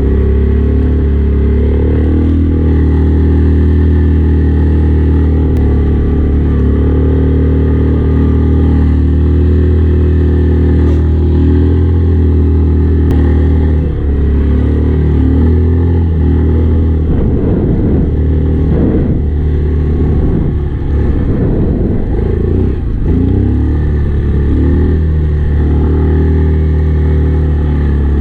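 Yamaha Kodiak ATV engine running hard through deep snow. It holds a steady drone at first, then revs up and down repeatedly in the second half as the throttle is worked.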